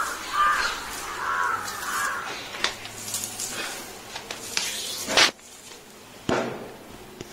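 Soft grass broom sweeping a tiled floor in a few short swishing strokes, the loudest about five seconds in. A repeated call, like a bird's, sounds through the first two seconds.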